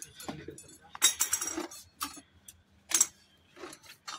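Metal hand tools clinking and clattering as they are rummaged through in a soft tool bag: a handful of separate sharp clatters, the loudest about a second in and another about three seconds in.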